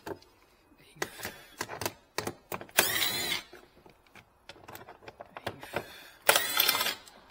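Cordless impact driver running in two short bursts, about three seconds in and again near the end, backing out the fasteners of a plastic wheel-arch liner. Light clicks and taps of the tool and fasteners come in between.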